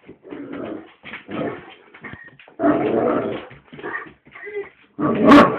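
Great Dane whining and grumbling in a string of short vocal sounds, with a louder outburst about five seconds in: the dog is agitated by a ceiling fan being switched off and on.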